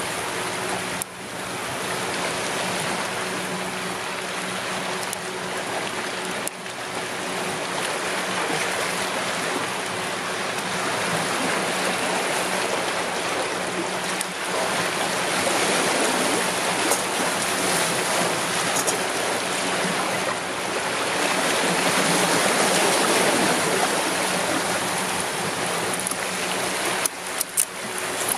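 Sea waves washing against shoreline rocks, a steady rushing with no break, and a few sharp clicks near the end.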